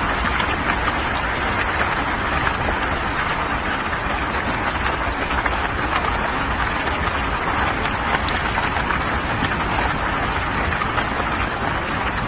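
Heavy rain falling, a steady dense hiss.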